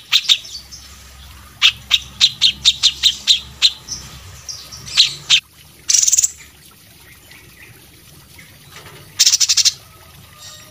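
Cage songbird singing: a fast run of short, sharp high chirps, then several dense rattling bursts of notes about half a second long. This is one of the birds of a cililin, cucak cungkok, kapas tembak and cucak jenggot song compilation.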